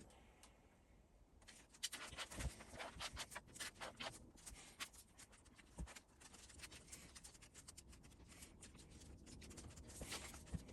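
Hand-working a metal vise part with an abrasive or scraping tool: quick irregular scratching strokes that start about two seconds in, with an occasional light knock, smoothing the surface.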